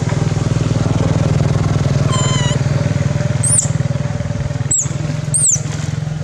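A small engine running steadily with a low, fast-pulsing hum. A short high call comes about two seconds in, and three sharp, very high chirps come near the end.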